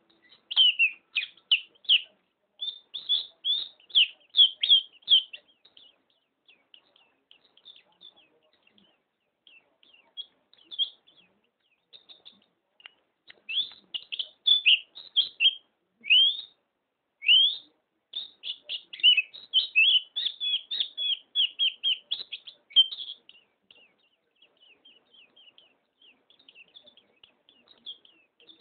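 White-eye (pleci) singing: fast, high chirping trills in loud runs, with softer scattered twitters between them.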